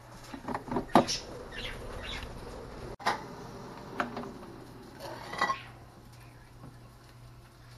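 Chefman air fryer's plastic basket drawer being pulled out and pushed back in: a cluster of clunks and clicks about a second in, then single knocks after three and at four seconds, and a double clack around five and a half seconds.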